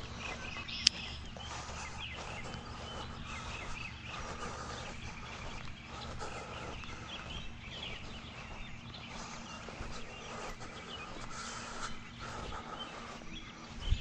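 Many short chirps, as of small birds calling, over a steady outdoor background, with one sharp click about a second in.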